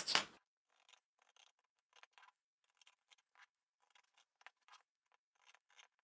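Fabric scissors snipping through lightweight cotton interfacing: many faint, short snips in quick runs with brief pauses between them.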